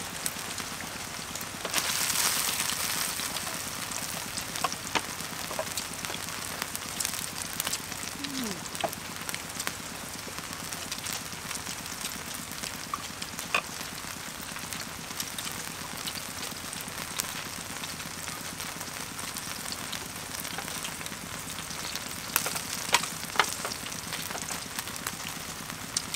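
Beef frying in butter and fat in a large wok: a steady sizzle with scattered crackling pops. The sizzle swells briefly about two seconds in, and a few louder pops come near the end.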